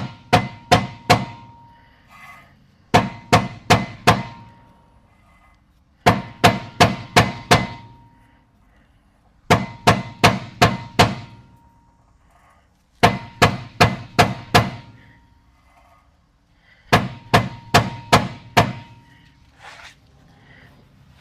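Hammer blows on the brake rotor and hub of a car's rear wheel, struck to knock a seized rear hub loose. Six quick volleys of four to six sharp blows each, with a short metallic ring, a pause between volleys while the rotor is turned to a new spot.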